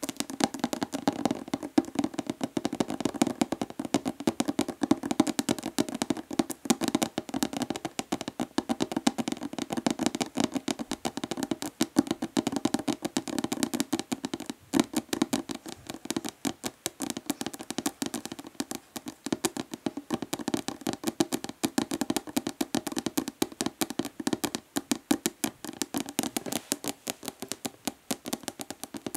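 Fast, rapid nail tapping: natural fingernails clicking on a hollow plastic body lotion bottle in a dense, continuous patter.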